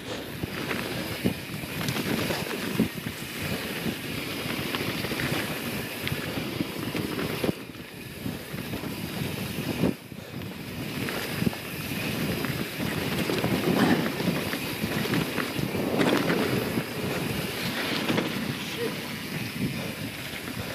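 Mountain bike, a YT Jeffsy 27, riding fast down a dirt flow trail: wind rushing on the camera microphone over the hum of knobby tyres on dirt, with many small clicks and rattles from the bike over bumps.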